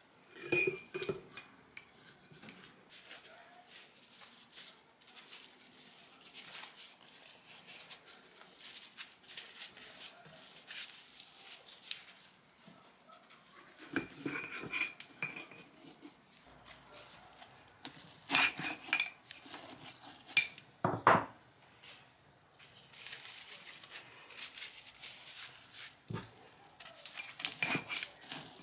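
Glass jar clinking and knocking as perilla leaves are packed into it by hand and pressed down with wooden tongs. Soft rustling runs between several sharp, ringing clinks, the loudest about two-thirds of the way through.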